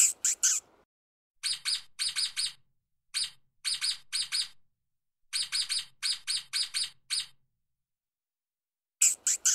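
Stoat (ermine) making a fine, high chirping: short chirps in quick runs of three to eight, about three a second, with pauses between runs. The loudest chirps come at the start and again near the end.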